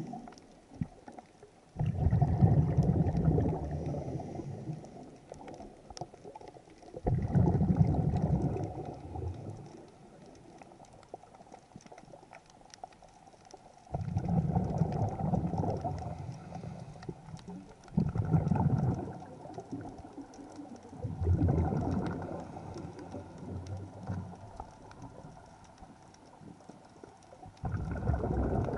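Scuba regulator exhaust bubbles heard underwater: a diver breathing out, each exhalation a burst of bubbling lasting two to three seconds, six times at uneven intervals of three to seven seconds, with quieter pauses between for the inhalations.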